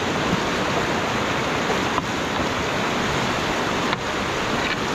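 Whitewater rapids rushing steadily around a canoe: an even wash of churning river water.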